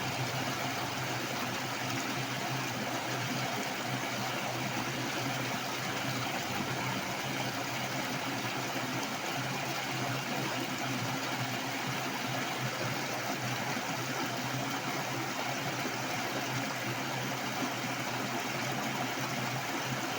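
Heavy rushing water flowing steadily, a constant full noise with a low rumble underneath.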